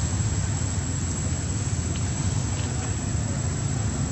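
A steady low rumble of background noise with no distinct events.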